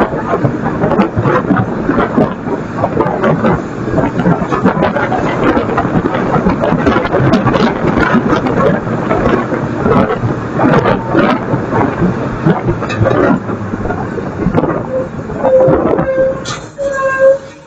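Garbage truck working a load of yard waste: a dense, loud crackling and crunching full of sharp snaps over the running truck. A steady whine comes in near the end.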